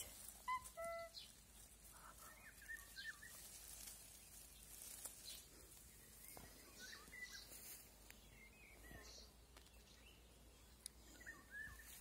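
Faint songbird song: a short phrase of clear whistled notes about half a second in, then scattered chirps and short trills on and off.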